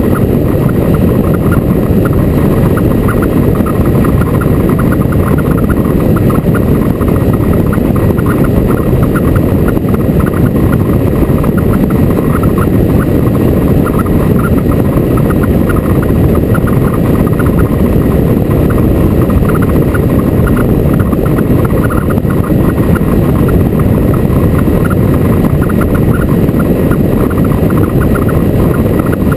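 Motorcycle riding at a steady speed: loud, unbroken wind rush over the microphone with the engine running underneath.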